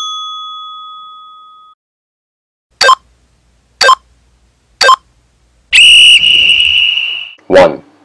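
A chime rings out and fades over the first couple of seconds, then a workout timer gives three short beeps a second apart, followed by a long whistle blast of about a second and a half: a countdown signalling the start of the next set on the other leg.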